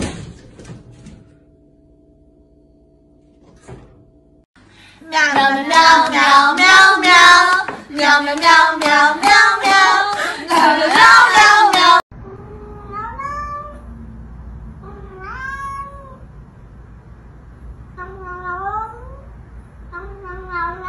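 Loud voices for about seven seconds, several pitches at once, cutting off abruptly. Then a domestic cat meows again and again, each meow a short call rising in pitch.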